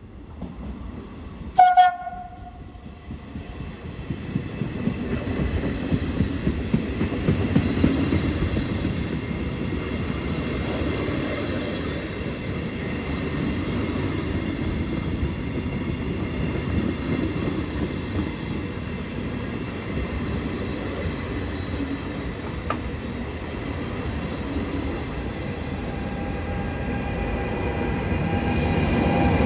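A train gives one short horn blast, then passes through the station with a steady rumble of wheels on rails that builds toward the end.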